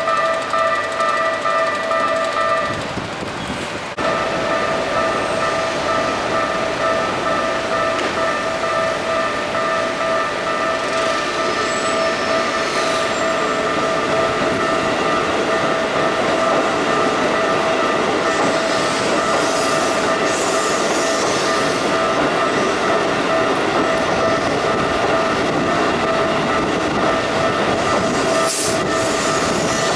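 Railroad crossing warning bell ringing steadily. It breaks off about three seconds in and starts again a second later, and keeps ringing as a train runs through the crossing, its wheels clattering on the rails.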